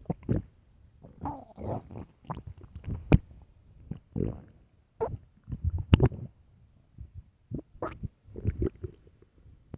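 Hungry human stomach growling and gurgling: a run of irregular rumbles and short squeaky gurgles, the loudest about six seconds in.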